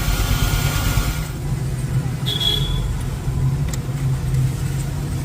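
Steady low rumble of motor vehicle engines running, with a hiss that stops about a second in, a short high tone midway and a faint click.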